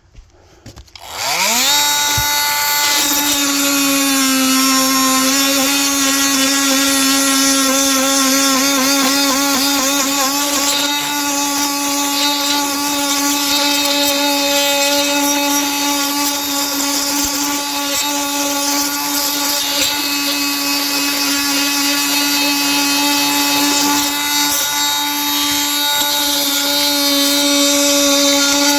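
A handheld electric power tool starts about a second in, spins up quickly and runs at a steady speed with a constant motor whine.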